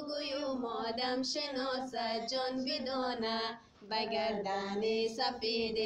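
A high voice singing a slow melody without words that the recogniser could take down, in held, gently wavering notes broken into short phrases, with a brief pause a little past halfway.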